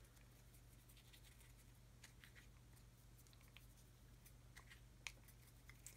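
Near silence: room tone with a faint low hum and a few faint ticks as a brush and a metal tool work pigment powder in a glass dish.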